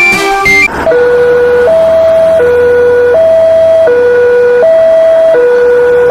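Two-tone siren, the kind used on ambulances, alternating evenly between a low and a high note, each held for under a second, starting about a second in. A few notes of music come just before it.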